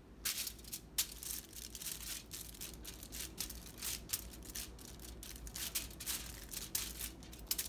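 Hands pressing and patting dough flat on a floured sheet of aluminium foil, the foil crinkling and rustling in quick, irregular crackles.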